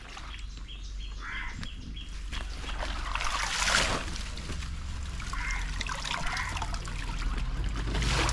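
Water splashing and trickling as a cylindrical woven bamboo fish trap is dragged and lifted through shallow canal water, with a louder splash about three and a half seconds in.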